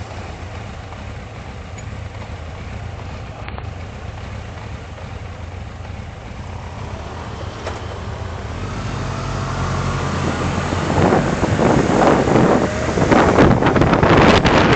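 Engine and road noise of a moving vehicle, recorded by a dashcam microphone. It runs steady at first, then grows louder from about halfway as it speeds up, with a rising engine note, and wind buffets the microphone near the end.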